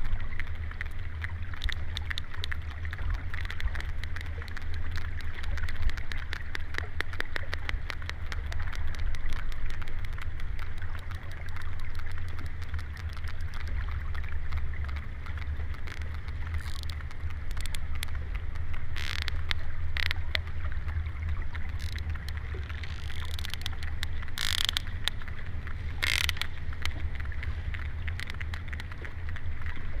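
Sperm whales clicking underwater: dense, rapid trains of sharp clicks over a steady low water rumble, with a few louder clicks standing out in the second half.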